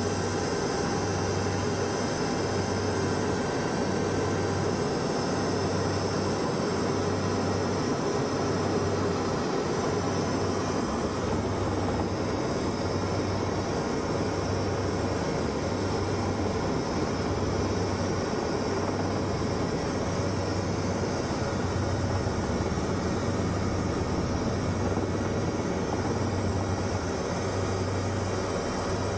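Helicopter in flight heard from inside the cabin: a steady, even rush of engine and rotor noise, with a low throb that swells and fades about once a second.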